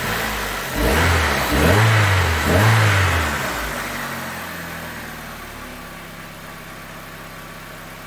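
2008 Hyundai Accent's four-cylinder engine blipped up in revs three times in quick succession about a second in, then settling back to a steady idle. It runs smoothly with no misfire, its split intake manifold gasket now replaced.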